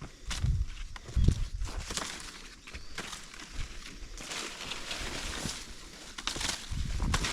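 A hiker's footsteps climbing a steep mountain trail: irregular scuffing and crunching steps, with heavy low thuds about half a second and a second in and again near the end.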